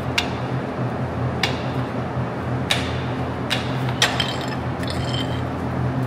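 Metal chains and hooks clinking against a steel hoof-trimming chute as a cow's leg is rigged to be lifted, with about five sharp clinks and a brief metallic ringing near the end. A steady low machine hum runs underneath.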